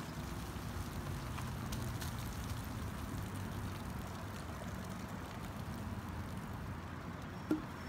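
Baking soda and vinegar reacting inside a five-gallon plastic water jug: a steady fizzing gurgle of foam, over a low outdoor rumble.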